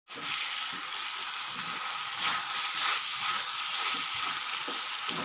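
Cubed potatoes frying in oil in a wok, sizzling steadily, while a spatula stirs them and scrapes the pan.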